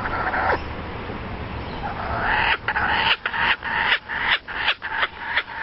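An animal making a fast series of short, repeated calls, about three a second, starting a little before halfway and keeping on.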